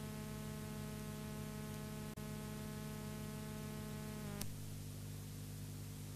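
Steady electrical hum with many overtones under a background hiss, the noise floor of an old radio broadcast recording. It drops out for an instant about two seconds in; a click follows just after four seconds, and the higher part of the buzz stops there.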